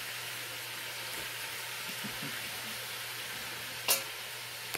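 Bone-in chicken thighs searing in oil in a pot, a steady sizzle as they brown on their second side. A single sharp click about four seconds in.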